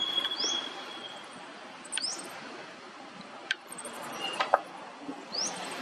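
Monkeys giving short, high squeaks that rise in pitch, three of them a couple of seconds apart, with a few sharp clicks in between.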